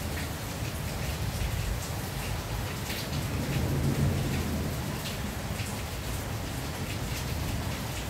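Rain falling on a tin roof: a steady patter with scattered louder drops. A low rumble of thunder swells and fades about three to four and a half seconds in.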